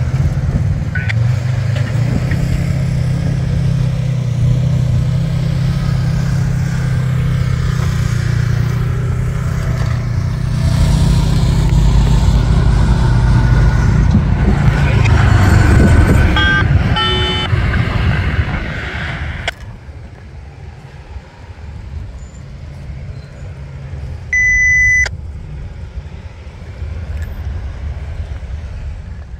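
Heavy trucks and cars driving over a railroad grade crossing, their engines making a steady low hum that grows louder and then falls away. Partway through there is a brief broken series of high tones, and later a single short beep.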